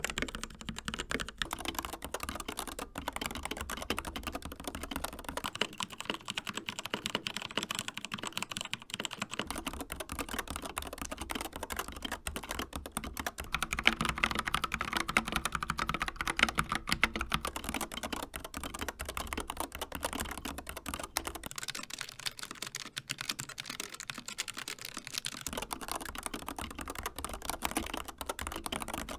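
Continuous typing on four mechanical keyboards in turn, changing about every eight seconds: a CZC Reaper with TTC Red linear switches, then a Keychron K4 with Gateron Brown tactile switches, then an Akko 3098S with Akko Jelly Purple switches, then a Logitech G915 with low-profile GL Linear Red switches. The Akko stretch has the loudest key clacks.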